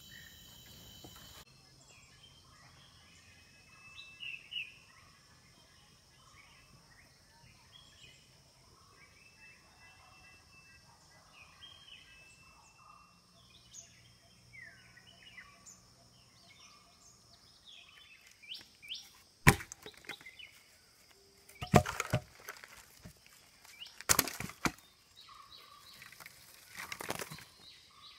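Faint bird chirps over a steady high insect drone, then, in the last third, several loud sharp knocks and crackling scrapes.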